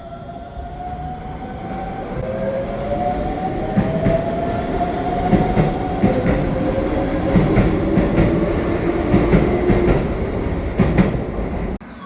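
Shibayama Railway 3600 series electric train running past, getting louder, with a motor whine gliding upward in pitch as it accelerates. The wheels clatter rhythmically over rail joints. The sound cuts off abruptly near the end.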